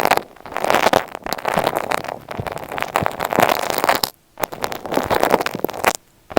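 Close, dense crackling and scratching rubbed right against an earphone microphone, full of tiny clicks, in surges with a brief pause about four seconds in and another near the end.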